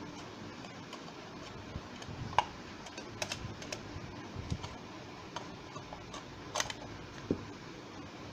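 Phillips screwdriver unscrewing the small screws that hold an LED bulb's metal LED board in its plastic housing: scattered light metallic clicks and ticks as the tip turns in the screw heads, the sharpest about two seconds in and again past six seconds.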